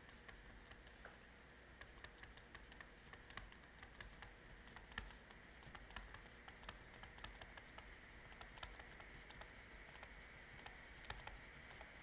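Faint, irregular small ticks and taps of a stylus writing on a tablet screen over a low hiss.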